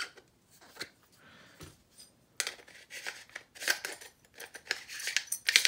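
Metal parts of a lightsaber hilt being fitted together by hand: a few faint clicks as the kill plug is seated, then from about two and a half seconds in a quick, irregular run of metallic clicks and scrapes as the end section is screwed onto the hilt.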